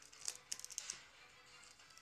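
Clear plastic packaging sleeve crinkling and crackling as it is handled, in a quick flurry during the first second, over quiet background music.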